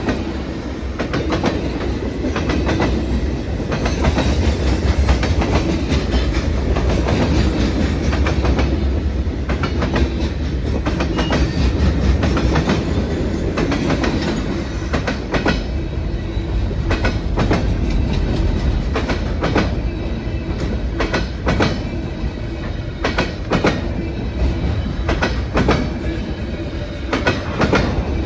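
A train rolling past: a steady low rumble with the wheels clicking again and again over the rail joints.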